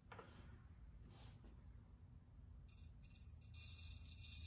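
Extruded smokeless rifle powder (Accurate 4064) rattling and trickling as it is poured from a powder scoop into a scale pan. It starts about three seconds in, after near silence with a low hum.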